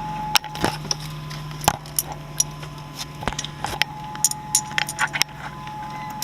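A tsunami warning siren holding one steady tone, heard from inside a moving car. Irregular sharp clinks and rattles from inside the car are the loudest sounds over it.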